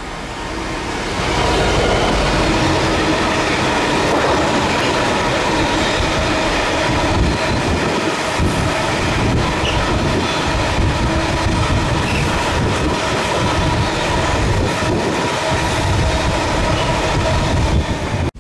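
Long rake of freight hopper wagons rolling past on a curve: a steady rumble with clattering over the rail joints and a faint thin squeal from the wheels. It builds about a second in, then holds steady.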